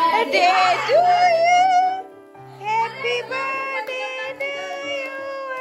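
A song playing: a voice singing long held notes over a steady instrumental backing, dipping briefly about two seconds in.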